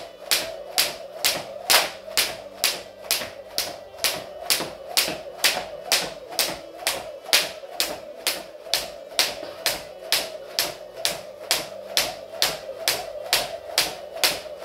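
Skipping rope slapping the wooden floor on every turn, a steady beat of about two and a half sharp slaps a second.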